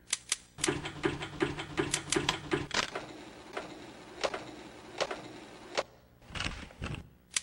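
Mechanical sound effects of the animated Memex machine at work: a fast run of clicks like typewriter keys with a short tone pulsing about six times a second, then a steady hum, a few single clicks and a brief rushing sound near the end.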